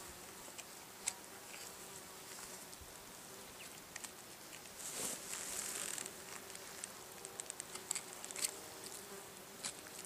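Bees buzzing around fresh elk meat, a faint steady drone whose pitch wavers as one flies close, with scattered faint clicks and a brief rustle from hands working the meat.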